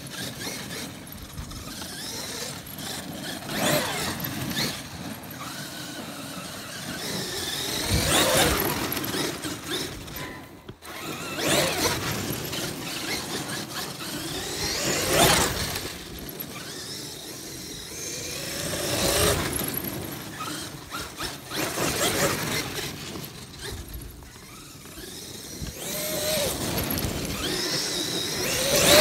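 Traxxas X-Maxx RC monster truck's brushless electric drive whining, its pitch sweeping up and down again and again with bursts of throttle, over the noise of the tyres tearing across dry grass and dirt.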